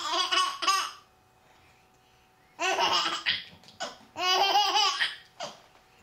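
A baby laughing in bouts: one at the start, then after a pause of a second and a half, a longer run of laughs broken by short breaths.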